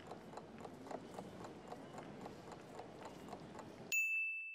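Countdown timer ticking about four times a second over a steady background hiss. Near the end the ticking stops and a single bell ding rings out and fades, marking the time running out.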